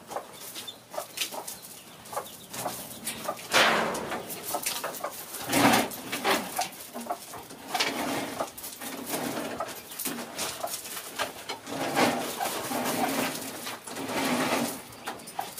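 Chickens clucking: short low calls repeating every second or so, with louder calls about four and six seconds in.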